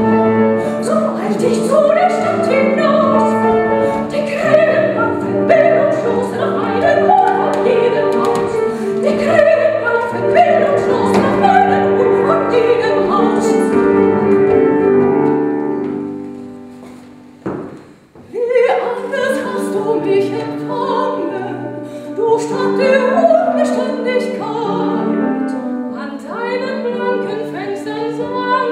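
Several voices singing together in classical, operatic style, long held notes layered in parts. About sixteen seconds in the sound fades to a brief near-pause, then the voices come back in.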